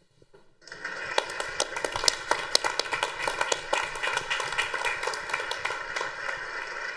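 Applause from a small group clapping hands, starting about a second in and keeping up steadily.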